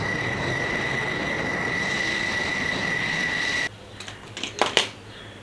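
Electronic sound effect: a steady hiss with a high whine, starting and stopping abruptly after about four seconds, followed by two sharp clicks near the end.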